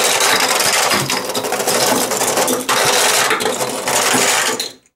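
Toy monster trucks rolling down the bumpy plastic Hot Wheels Monster Jam Stunt Track Challenge ramp, their wheels clattering over its moulded rocks, tyres and potholes. It makes a dense rattle that cuts off sharply near the end.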